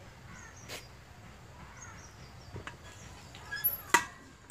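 A knife working raw chicken on a stainless steel plate: a few soft clicks, then a sharp ringing metal clink near the end. Small birds chirp faintly in the background.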